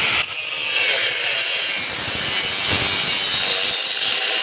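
Steel exhaust bend pipe for a motorcycle silencer being cut through: a steady, loud cutting noise.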